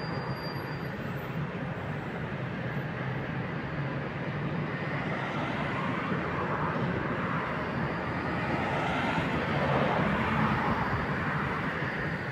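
Steady drone of an electric passenger locomotive waiting at the platform, growing a little louder for a few seconds past the middle.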